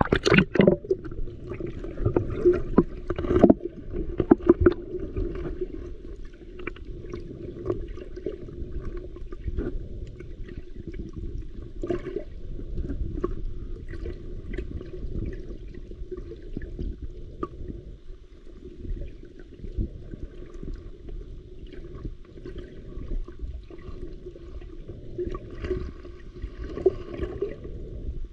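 Water heard from a camera dipped under the sea surface: splashes and knocks in the first few seconds as it goes under, then a steady muffled underwater rushing with scattered faint clicks.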